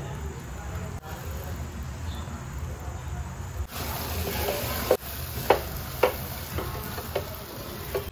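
Hot butter-and-water mixture in a nonstick saucepan, then, from about four seconds in, flour being stirred into it with a silicone spatula: a hissing sizzle with several sharp taps of the spatula against the pan.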